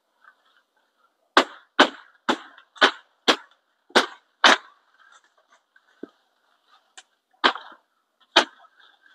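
Coffee tree branches being pruned: a quick run of seven sharp woody snaps, about two a second, starting about a second and a half in, then a few more spread out toward the end.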